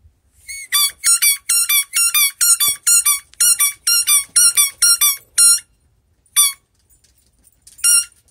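Squeaky tennis ball squeezed over and over to get a dog's attention: a run of short, high squeaks of the same pitch, about three or four a second, then two single squeaks with pauses between.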